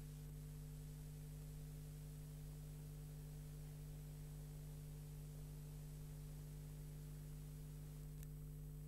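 Steady electrical hum with faint hiss and no programme sound, the empty run-out of the film's soundtrack; a single faint click about eight seconds in.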